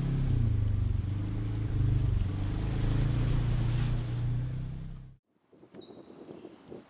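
Steady low hum of a motor vehicle's engine running, which cuts off suddenly about five seconds in. Quiet outdoor background with a faint bird chirp follows.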